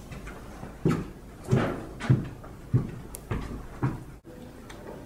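Footsteps going down indoor stairs: six heavy thuds, about two a second, in the first four seconds, then a sudden cut to quieter sound.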